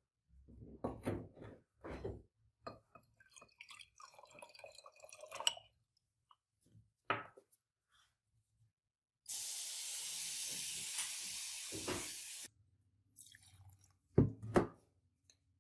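Glass beakers handled on a bench, with scattered knocks and liquid sloshing. In the middle comes a steady hiss of running liquid lasting about three seconds that starts and stops abruptly. Near the end there are two sharp glass knocks.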